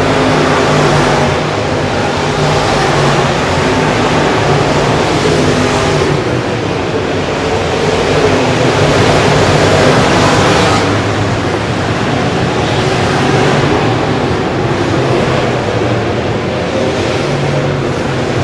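The V8 engines of IMCA Modified dirt-track race cars running hard as the field laps the oval. The sound swells as cars pass close by, loudest about ten seconds in.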